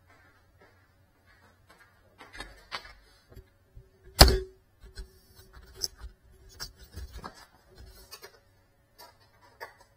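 Scattered light clicks and knocks, with one loud sharp thump about four seconds in, after which a faint tone lingers for a couple of seconds.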